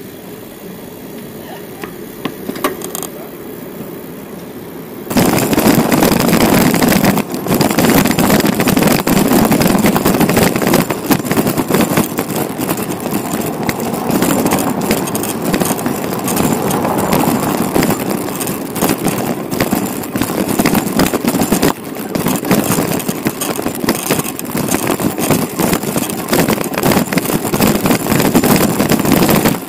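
Loud noise of a moving bicycle ride, wind on the microphone mixed with road noise, that jumps up suddenly about five seconds in and stays loud.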